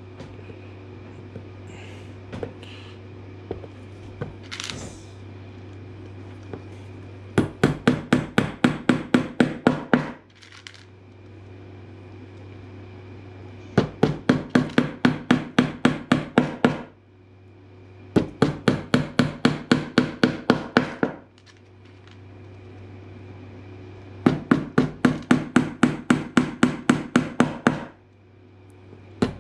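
Steel claw hammer tapping small glued wooden pegs into a wooden block, in four runs of quick strikes about four or five a second, each run about three seconds long. A steady low hum runs underneath.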